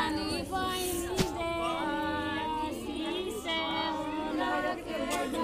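Several women singing a folk song together, their voices overlapping; one sharp knock about a second in.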